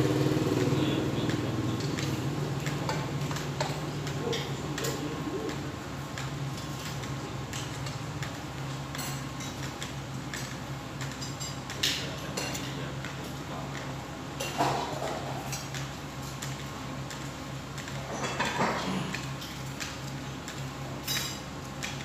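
Serving utensils and plates clinking now and then as people dish up food from trays, over a steady low hum.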